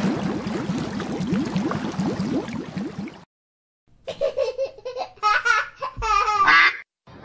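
A bubbling water sound effect, made of quick rising blips, about six a second, for about three seconds. After a short pause comes a child's giggling sound effect.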